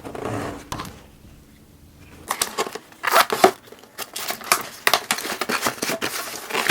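A cardboard shipping box being opened by hand. After a short lull, a run of crinkling, rustling and tearing starts about two seconds in, from the box, its tape and the packing paper inside.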